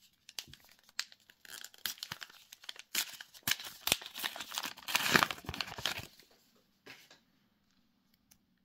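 Trading-card booster pack wrapper being torn open and crinkled: a run of ripping and crackling that is loudest about five seconds in and stops about six seconds in.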